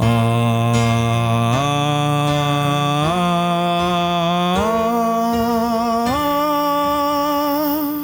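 A low male voice sings a sustained vowel up a rising scale of five notes, each held about a second and a half at an even volume, over a held keyboard note: a pitch-to-volume exercise, raising the pitch without getting louder. Vibrato comes into the higher notes.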